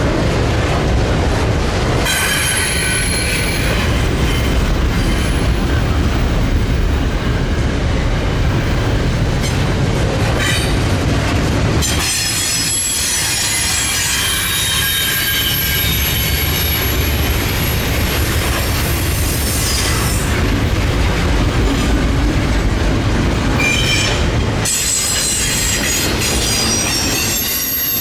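Norfolk Southern freight train rolling past with a steady low rumble and high-pitched wheel squeal from the cars. The squeal comes and goes, strongest about two seconds in and again near the end.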